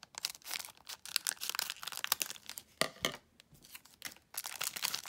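A trading card pack's foil wrapper being torn open and crinkled in the hands, a run of irregular crackles.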